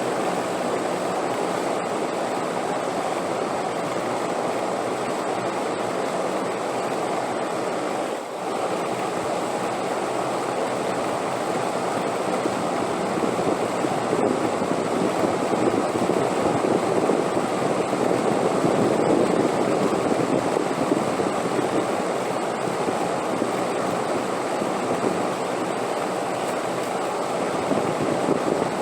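Steady rushing wind noise that swells louder through the middle, with a brief dip about eight seconds in.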